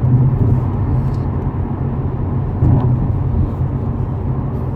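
Tyre road noise and wind noise inside the cabin of a 2018 Subaru WRX STI on Yokohama Advan tyres at highway speed: a steady low rumble with a fainter hiss above it.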